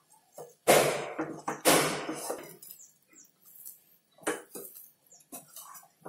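Wooden spatula working freshly scalded rice flour dough in a nonstick pan: two loud scraping strokes about a second apart, then lighter taps and scrapes against the pan.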